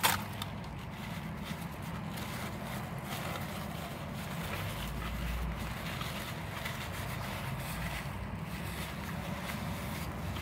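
Close-up chewing of a mouthful of banh mi sandwich, soft irregular mouth noises over a steady low hum, with one sharp click right at the start.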